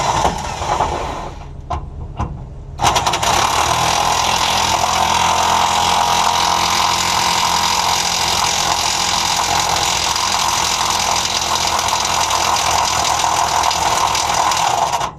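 A few ratchet clicks, then about three seconds in a power impact wrench starts hammering steadily on a seized fuel-tank cage bolt under a school bus, running without a break until it cuts off suddenly just before the end. The bolts are tight and rusted in and barely turn.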